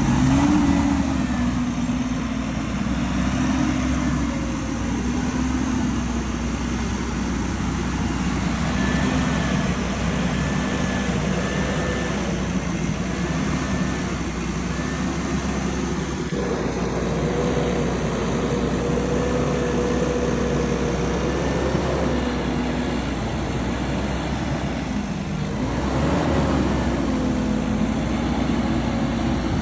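Diesel engines of forestry skidders (an LKT 82 working with an Equus 175) running under load in heavy logging, engine speed wavering up and down, louder again near the end.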